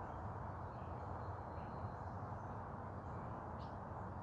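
Steady low background noise with a few faint, short bird calls in the distance.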